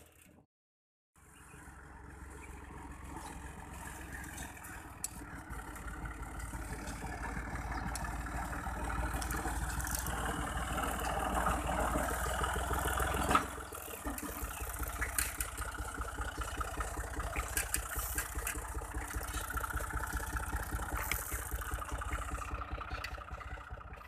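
Fiat 480 tractor's three-cylinder diesel engine running under way. It comes in about a second in, grows louder up to about halfway, drops suddenly, then runs on steadily.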